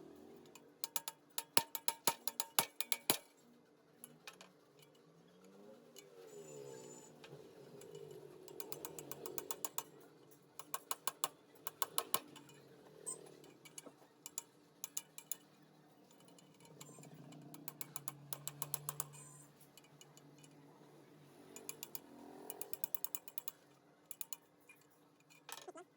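Hand tool ratcheting in repeated runs of rapid metallic clicks, with quieter gaps between the runs.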